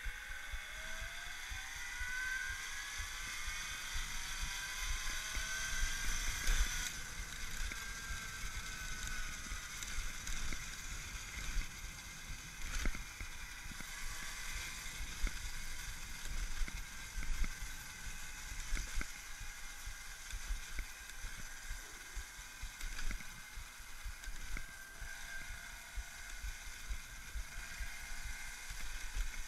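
Axi 5345 brushless electric motor of a converted Babetta 215 moped whining under way, its pitch rising over the first several seconds as it speeds up, then holding a steady whine while cruising. Wind rumble on the microphone runs underneath, with a few light knocks.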